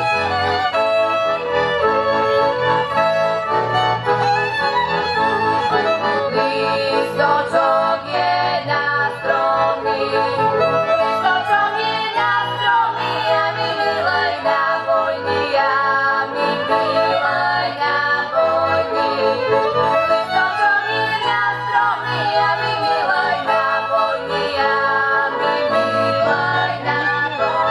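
Two young girls singing a Slovak folk song as a duet, with instrumental folk accompaniment.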